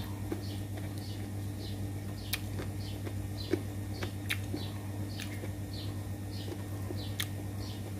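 A small bird calling outdoors, one short high chirp repeated about every half second, over a steady low hum, with a few sharp clicks scattered through.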